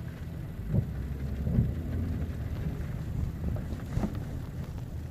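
Low, steady rumble of a car moving slowly on a wet street, heard inside the cabin, with three soft thumps, the loudest about a second and a half in.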